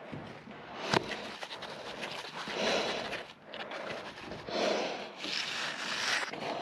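Gloved hands scraping and rubbing at wet mortar and brick in swells of about a second each, with one sharp knock about a second in.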